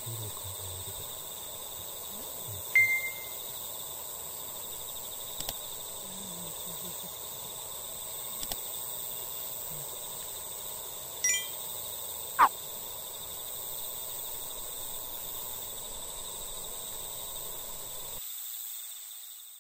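Outdoor evening ambience by a lake: a steady background hiss with steady high tones, a short chirp about three seconds in, a few faint clicks, a quick cluster of high chirps near eleven seconds and a sharp falling call just after it.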